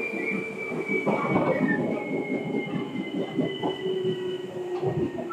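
Seibu 2000-series electric commuter train running: rumble and clatter of wheels on rail, with a thin high whine that slides slowly lower in pitch over a steadier lower tone.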